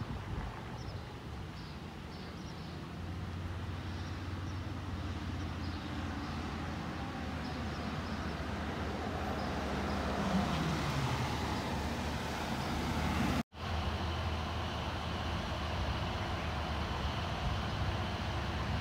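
Ambulance engine and tyres growing louder as it drives up and passes close, its engine note dropping in pitch about ten seconds in, with no siren sounding. After a sudden cut, a steady low engine hum as it sits running.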